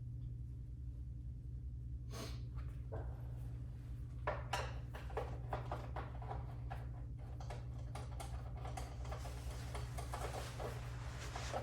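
Steady low hum with a scatter of small clicks and knocks, a couple about two seconds in and a busier run of them from about four seconds on, like objects being handled on a bench.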